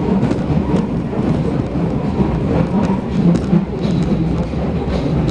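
Berlin U-Bahn F-type train running through a tunnel, heard from inside the carriage: a loud, steady rumble of wheels on rail with scattered light clicks.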